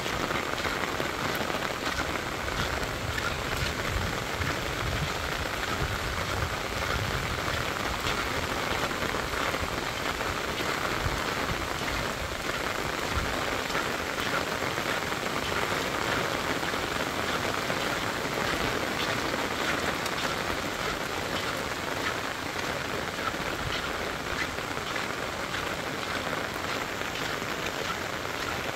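Steady rain falling on a wet asphalt road and roadside plants: a dense, even patter of drops.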